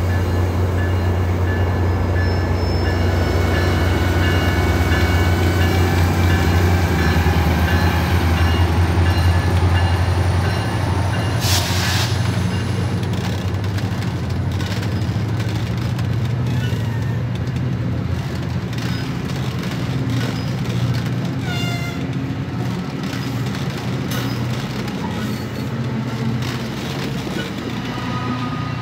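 MARC commuter train's diesel locomotive running with a deep steady hum. About twelve seconds in there is a short burst of air hiss, the engine note then rises, and the sound slowly fades, with brief high squeals along the way, as the train pulls out.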